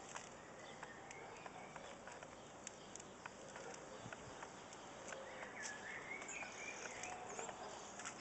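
Quiet outdoor background: a steady faint hiss with scattered small clicks and a faint wavering chirp about two-thirds of the way in.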